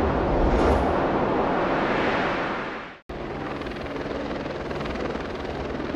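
A dense rushing noise swells and then fades out about three seconds in; after a brief break, a helicopter's rotor and engine noise carries on steadily.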